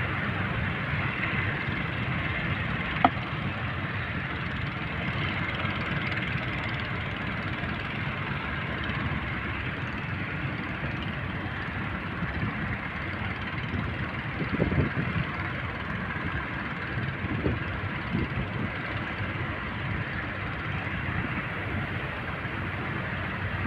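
Boat under way at sea: a steady engine rumble mixed with wind and water noise. There is a sharp click about three seconds in and a few dull knocks later on.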